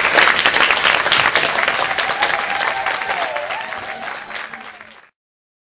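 Audience applauding, with one long wavering cheer above the clapping. The applause fades and cuts off about five seconds in.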